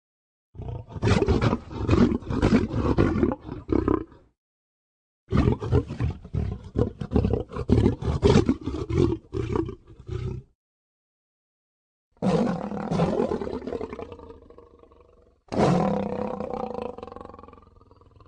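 Cartoon lion roar sound effects, four separate roars cut apart by dead silence. The first two are choppy and rapidly pulsing; the last two are longer, with a held tone that fades out.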